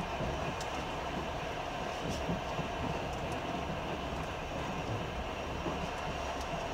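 Passenger train running at speed, heard from inside the carriage: a steady rumble of wheels on the rails with a few faint high ticks.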